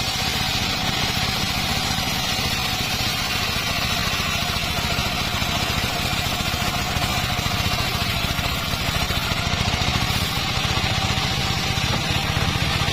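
Engine-driven circular saw rig running steadily, with a fast low pulsing and a faint steady whine above it.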